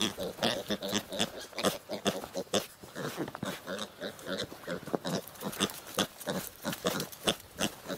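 Piglet grunting in a quick run of short grunts, several a second, as it trots about.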